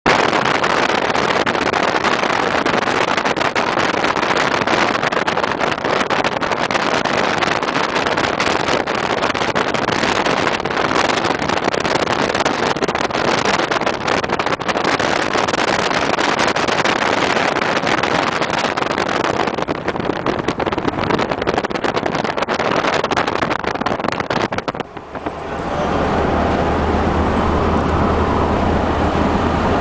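Vehicle driving at highway speed, heard from inside with the side window open: a dense rush of wind and road noise over the engine. About 25 seconds in the rush dips briefly and gives way to a steadier cabin drone with a low engine hum.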